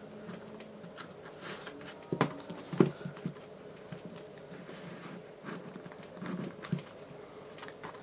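Soft rustles, scrapes and light taps of hands handling a slim leather card wallet, sliding cards and folded paper bills in and out of its slots, with a couple of sharper clicks about two and three seconds in.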